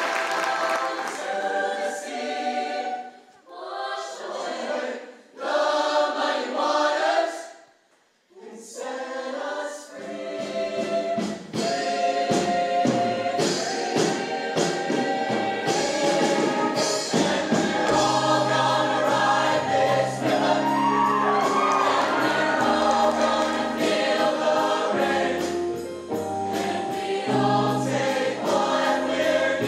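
A mixed show choir singing in harmony, unaccompanied at first with two short breaks. A band comes in underneath about ten seconds in and carries on with the choir.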